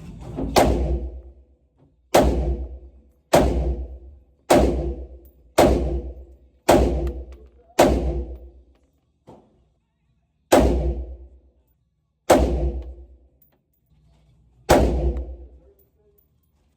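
Diamondback AR-15 pistol firing about ten single shots at an unhurried pace, each a sharp report with a ringing tail. The shots come roughly a second apart, then with longer pauses near the end.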